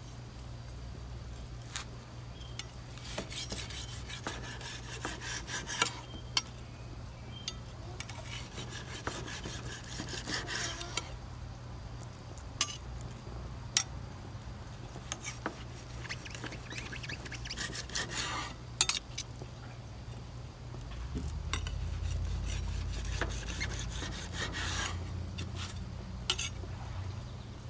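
Chef's knife slicing through a block of grilled halloumi on a wooden cutting board, with scraping strokes, sharp taps of the blade on the board and clinks of a metal carving fork. A steady low hum runs underneath and swells into a low rumble for a few seconds near the end.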